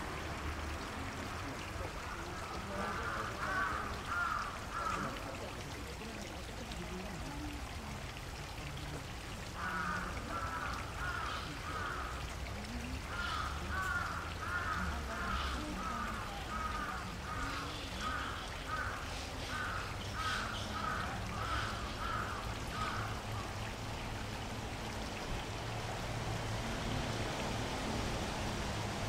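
Water flowing steadily in a stream, with a bird calling in runs of short repeated notes: a brief run about three seconds in, and a longer one from about ten seconds to just past halfway.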